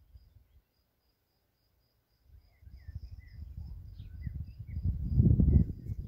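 Outdoor field recording in which wind buffets the microphone with a low rumble that rises about halfway through and is loudest near the end. A thin high chirp repeats about four times a second, and a few short bird chirps come in.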